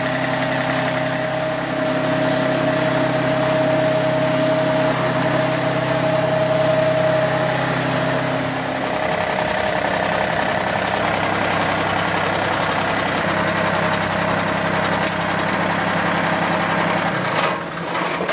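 John Deere 955 compact tractor's three-cylinder diesel engine running steadily at idle. About nine seconds in the sound shifts to a different steady engine note.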